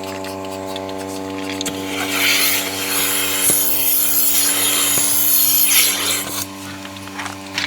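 Portable milking machine's vacuum pump running with a steady hum. About two seconds in, a loud hiss of air being drawn in by the vacuum starts and runs for about four seconds before cutting off.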